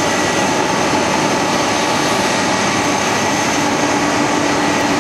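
Boeing 767 jet engines running at taxi power: a steady, loud rush with a thin high whine, and a low hum that joins about three seconds in.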